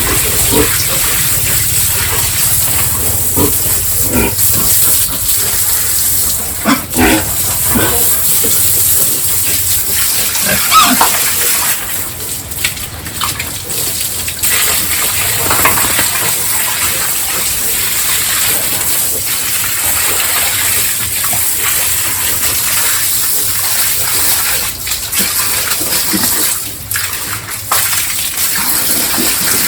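Pigs grunting and calling now and then over a steady rush of running water.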